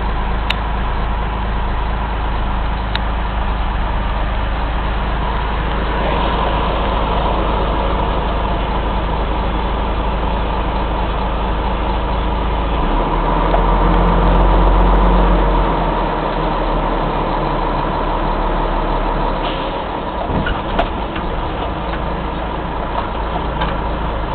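Engine of an old Mack CF fire engine running as the rig drives along, heard from inside the cab, a steady low rumble that grows louder for a couple of seconds about halfway through. A few short knocks near the end.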